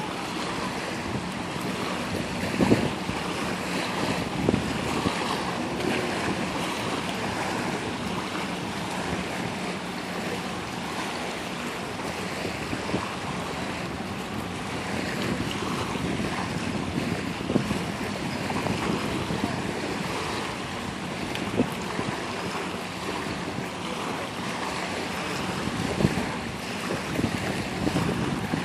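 Wind buffeting the microphone over small waves lapping on a sandy shore: a steady rushing noise with a few brief louder gusts or knocks.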